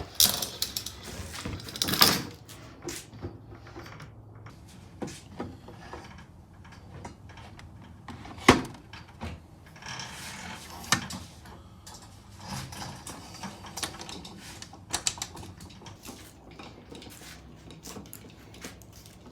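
Scattered metallic clicks, clinks and knocks of roller-door opener parts being handled and fitted by hand, with a few sharper knocks, the loudest about eight and a half seconds in.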